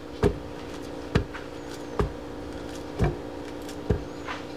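Banana being sliced by hand with a knife over a blender jar, with a short knock about once a second as each slice is cut off and drops into the jar.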